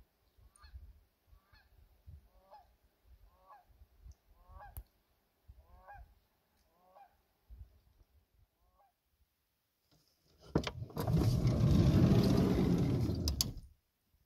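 Geese on a lake honking, a run of short calls about every half second that dies away after about nine seconds. Then a loud rushing noise about three seconds long starts and stops sharply.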